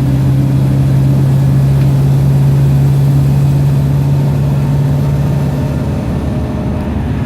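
Wright StreetLite single-deck bus engine heard from on board, a steady low drone holding one pitch over road noise, which drops away about six seconds in. The bus is running in limp mode.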